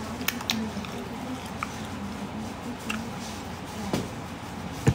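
Soft clicks of someone eating, a handful of small sharp ticks over a faint, low background voice.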